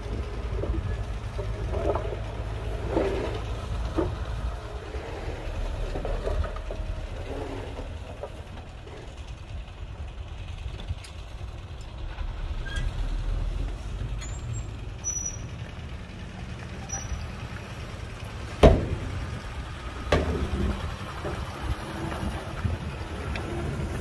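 Heavy diesel earth-moving machinery running with a steady low rumble, with scattered clanks and knocks, and one loud sharp bang a little over three-quarters of the way through followed by another knock soon after.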